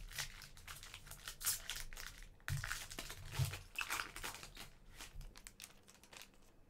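Panini Mosaic soccer trading cards and their pack wrapper being handled, crinkling and rustling with many short scratchy clicks that grow quieter near the end.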